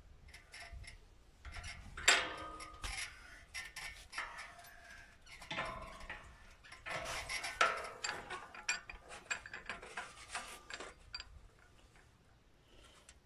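Steel bench vise being worked: its sliding T-handle clanks and rattles as the screw is turned, with metallic scraping and ringing knocks as aluminium sheet clamped in the jaws is bent over by hand. The loudest clanks come about two, five and a half and seven seconds in, and the sounds thin out to scattered ticks near the end.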